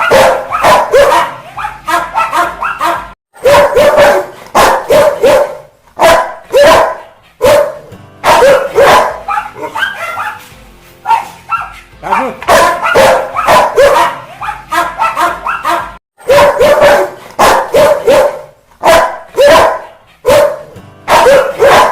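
Angry Rottweiler barking: loud, repeated barks in quick runs of about two a second, with brief pauses about 3 s and 16 s in.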